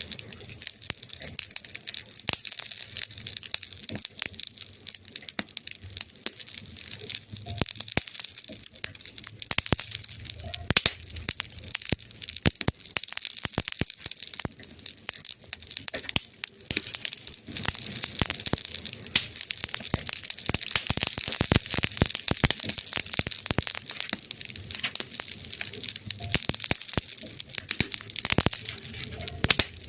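Campfire crackling: a dense, irregular run of sharp pops and snaps from burning wood over a steady hiss.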